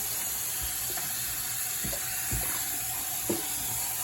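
Kitchen faucet running steadily into a sink while a cat is being washed in it, with a few soft knocks in the sink near the middle and a sharper one about three seconds in.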